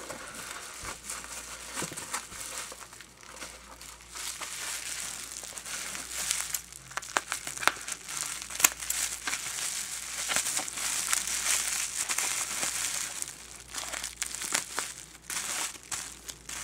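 Plastic bubble wrap crinkling and crackling with many sharp little clicks as it is lifted out of a cardboard box, handled and cut open with scissors.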